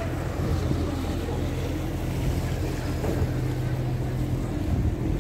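Small canal boat's motor running steadily on the water below, a low even hum, with wind on the microphone.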